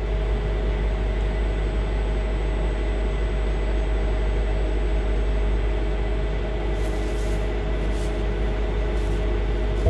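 A steady low machine rumble with a constant hum, starting abruptly and holding level. A few short rustles come in near the end.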